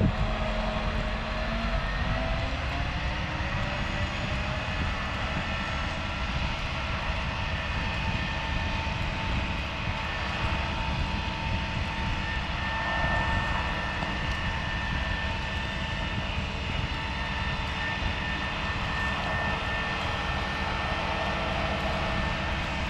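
Mobile crane's diesel engine revving up over the first few seconds, then running steadily at raised revs with a steady high whine over it while the crane works its hook.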